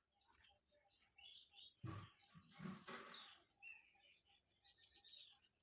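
Small birds chirping faintly in the background, with a brief louder rustle or handling noise about two seconds in.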